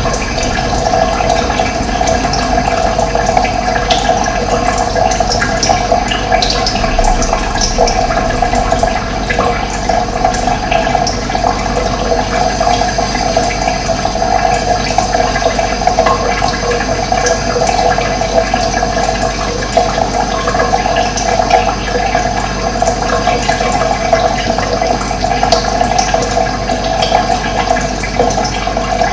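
Steady rushing of running water, with birds chirping briefly now and then above it.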